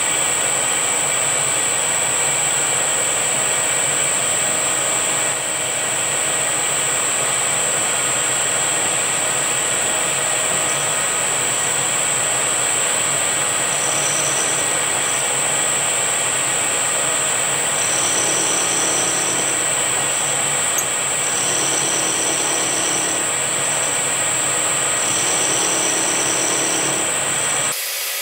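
Milling machine running with its end mill turning, milling a small camshaft blank held in a dividing head down to its base diameter. It makes a steady high whine, and a second, higher squeal comes and goes several times in the second half. The whine stops just before the end.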